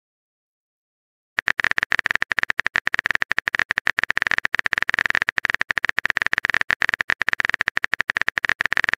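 Rapid run of keyboard typing clicks from a texting-story app's sound effect, starting about a second and a half in after near silence and going on steadily at several clicks a second.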